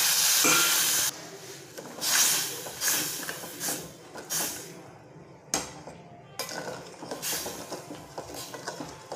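Water pouring from a steel bowl onto sugar in a steel pan, stopping about a second in, then a metal spoon scraping and clinking against the steel pan in irregular strokes as the sugar and water are stirred together for syrup.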